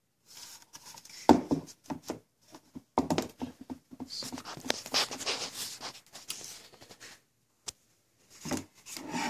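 Handling noise from a truck dash bezel being moved over a wooden table: irregular knocks, scrapes and rustling, with the sharpest knock about a second in and a few more near the end.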